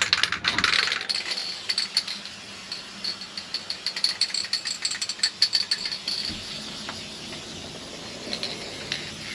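Aerosol spray can of spar urethane being shaken, its mixing ball rattling in quick strokes. The rattling is loudest at the start and grows sparser, fading to a fainter haze after about six seconds.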